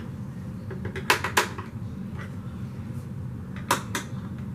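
Sharp clicks from a screwdriver and the plastic housing of a Hoover upright vacuum as its screws are tightened: two quick clicks about a second in and two more near the end, over a steady low hum.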